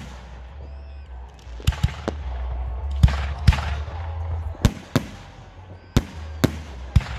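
Aerial firework shells bursting overhead in an irregular series of about ten sharp bangs, several trailing off in a hiss.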